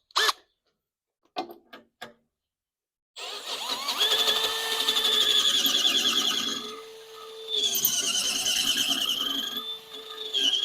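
Electric drill with a 3/8-inch bit reaming out a bolt hole in the steel push bumper, so a 10 mm metric winch-mount bolt will fit. Two quick trigger blips, then about three seconds in, the drill runs steadily with a wavering high squeal as the bit cuts. It eases off briefly about seven seconds in, then resumes.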